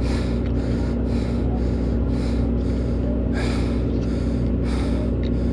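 Steady low hum of the boat's engine, with a rhythmic hiss about twice a second on top of it.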